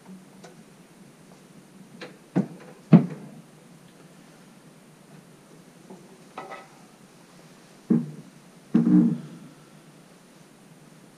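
Wooden walking sticks knocking against each other and the rack as one is put back and another taken up: a handful of separate knocks and clatters, the loudest about three seconds in, with two more near the end.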